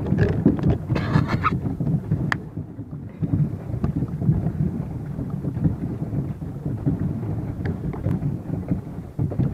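Wind buffeting a phone's microphone, an irregular low rumble, with a short higher sound about a second in.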